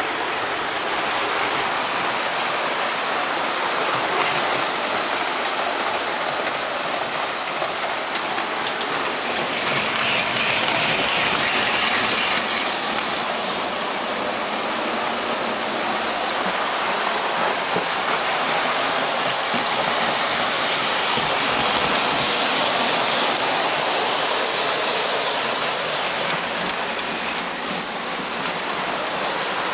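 O-gauge three-rail model trains running on the layout: a steady rushing clatter of metal wheels rolling over track.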